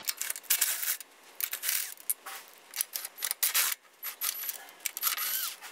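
Ratchet and socket on an extension backing out the 13 mm engine-mount bolts from the subframe: irregular metallic clicking, rattling and clinking in quick bursts.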